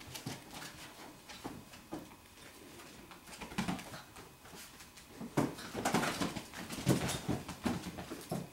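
Five-week-old golden retriever puppies at play: small puppy whimpers mixed with irregular knocks and rattles of toys against the plastic pen gate, busier and louder in the second half.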